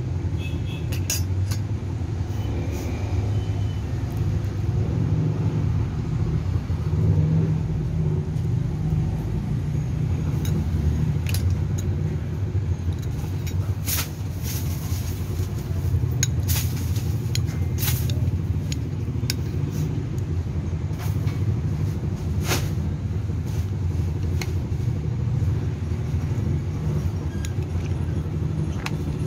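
A steady low rumble, with scattered light clinks and scrapes of a metal spoon and fork against a ceramic bowl and plate.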